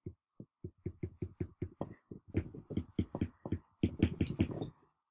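Stylus tapping and stroking on a tablet screen during handwriting: a run of small quick taps that grows denser about two seconds in, then stops near the end.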